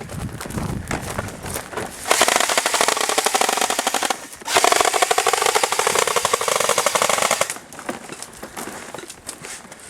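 Airsoft gun firing on full auto: two long bursts of rapid shots, the first about two seconds long and the second about three, with a brief pause between.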